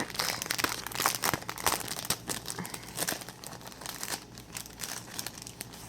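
Packaging crinkling and rustling in the hands as stickers and tags are taken out and turned over: irregular crackles, busiest in the first couple of seconds and thinning out toward the end.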